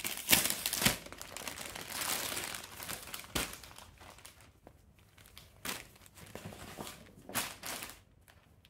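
Crinkling and rustling of a kurti's packet as it is opened and the folded garment is pulled out and shaken open, in irregular bursts that thin out in the second half.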